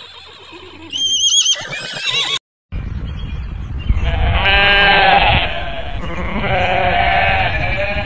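Sheep bleating: two long wavering bleats over a low rumble of wind. Earlier, about a second in, a short high wavering animal call.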